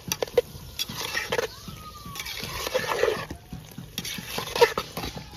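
Spoon stirring and scraping a thick, wet paneer masala mixture in a cooking pot, with irregular knocks of the spoon against the pot.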